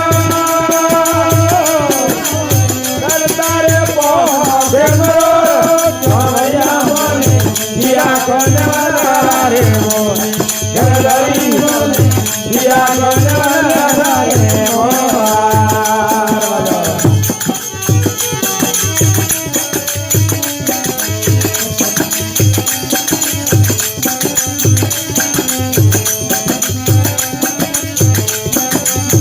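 Rajasthani devotional bhajan: a singing voice over a steady, evenly repeating drum beat and rattling percussion. The voice stops about 17 seconds in, and the drum and instruments carry on alone.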